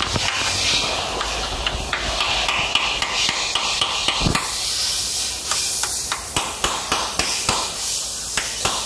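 Hammering on metal in a body shop: sharp strikes that fall into a regular beat of about two to three a second in the second half. Behind them runs a steady high hiss of grinding.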